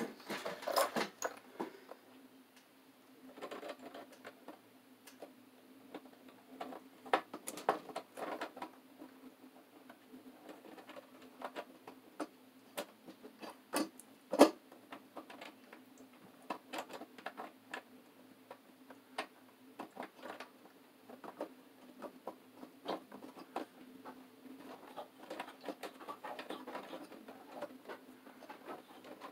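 Hands handling electrical wires at the top of a breaker panel: irregular small clicks, scrapes and rustles of wire and metal, with a sharper knock about 14 seconds in, over a faint steady hum.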